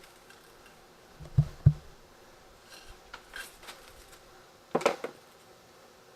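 Objects being set down and handled on a hard surface: two low thuds about a third of a second apart, then a few light clicks and a sharper clatter of quick knocks near five seconds.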